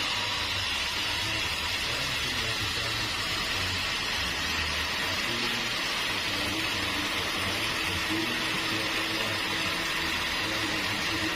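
Sawmill saw and machinery running with a steady mechanical noise: a low rumble under an even hiss.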